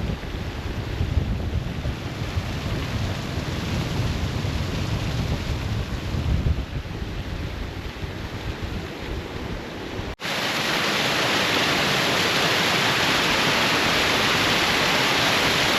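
Gusty wind buffeting the microphone over rushing water; about ten seconds in the sound cuts to the steady, even rush of a waterfall.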